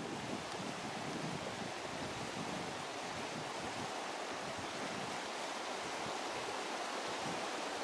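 Shallow river rushing over stones and boulders, a steady, even rush of water.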